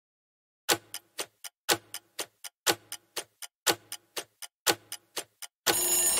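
Countdown timer's clock-ticking sound effect: five beats about a second apart, each a loud tick followed by three softer ones. Near the end, as the timer reaches zero, a steady time's-up sound lasts about a second.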